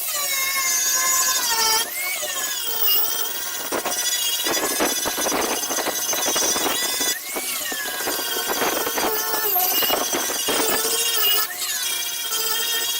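Power grinder running with a high whine whose pitch sags and recovers several times as it is pressed into the work, with rougher grinding noise in stretches.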